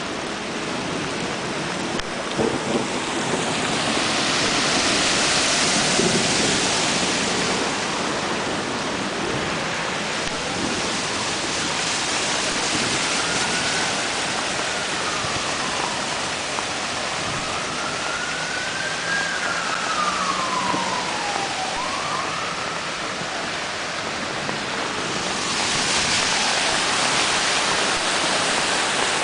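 Heavy rain and running floodwater: a steady rushing hiss that swells louder twice. Through the middle a faint, thin tone rises and falls several times.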